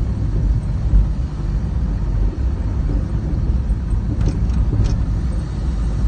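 Wind buffeting the phone's microphone: a loud, uneven low rumble that rises and falls with the gusts.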